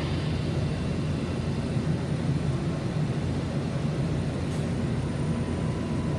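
Steady low rumble and hiss inside a WMATA Metrorail car while the train runs between stations.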